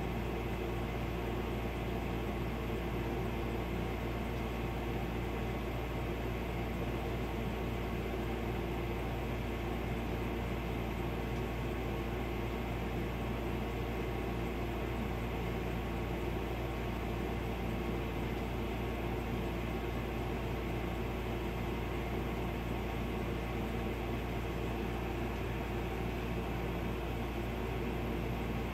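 Steady indoor machine hum with several steady low tones and a light hiss, unchanging throughout.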